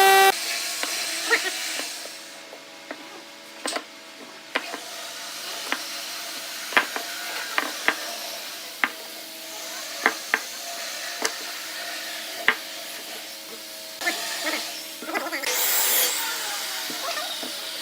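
Wood lathe running with a steady motor hum, with scattered sharp clicks and taps as the turning tool works the spinning wood, and a louder burst of scraping near the end.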